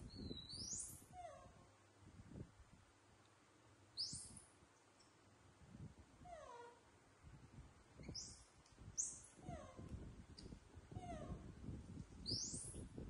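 Baby macaques giving about five short, high-pitched squeaks, each rising steeply in pitch, with fainter falling whimpers between them.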